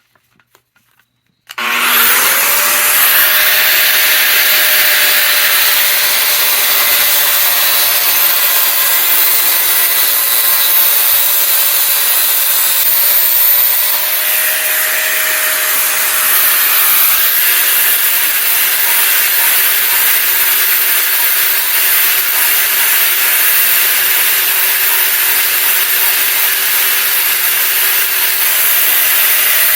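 Angle grinder with a cut-off wheel starting up about a second and a half in, its whine rising quickly, then cutting steadily through a steel jack-handle tube. The whine drops lower about halfway through.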